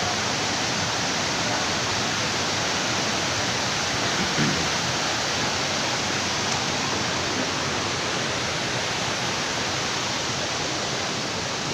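Coban Rondo waterfall: water falling and crashing into its pool, a steady, even rush of white water.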